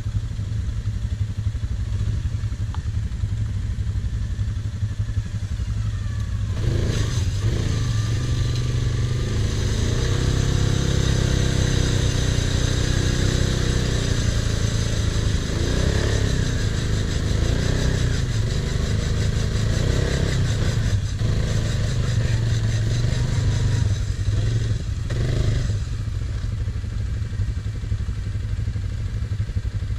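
Quad (ATV) engine revving in repeated rising and falling bursts as it works through deep mud in a mud hole, from about seven seconds in until near the end. A second quad engine idles steadily underneath throughout.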